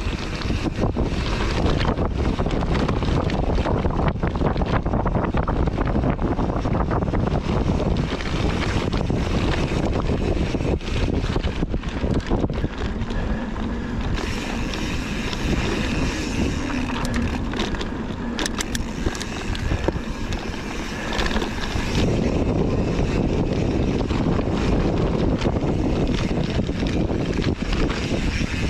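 Wind rushing over the camera microphone as a mountain bike rolls down a rough dirt trail, with constant knocks and rattles from the bike over bumps. A brighter hiss joins for several seconds in the middle.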